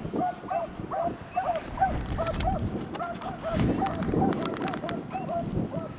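Beagles barking on a rabbit trail in short, quick barks, about three a second without a break. Their steady barking is the sign that the hounds are on the scent and running it.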